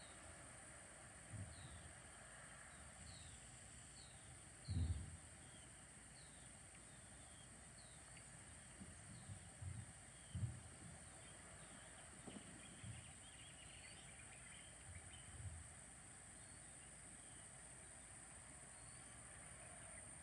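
Faint outdoor ambience: a small bird repeats short falling chirps over a steady high hiss, with a few soft low thumps, the strongest about five seconds in.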